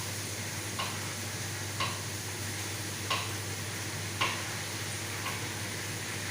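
Food sizzling in a pan while a cooking utensil knocks against the pan about once a second, over a steady low hum.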